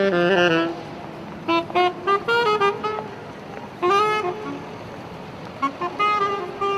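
Saxophone playing a melody of short notes and a few held ones, in several phrases with gaps between them, over a steady background hiss.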